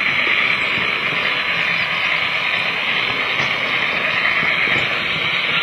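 Steady running noise of an OO gauge model train, its motor and wheels on the rails, heard from a camera riding on the train.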